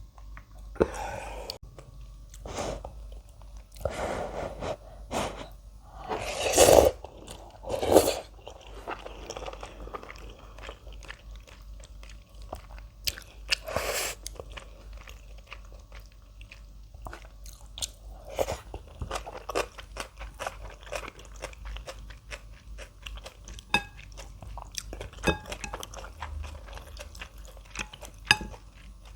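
Close-miked eating: crunchy chewing of kimchi. It is a run of wet crunches and mouth clicks, with a few louder, longer noisy bursts in the first third.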